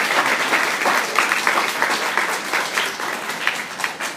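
Audience of schoolchildren applauding, many hands clapping at once, the applause thinning out and fading near the end.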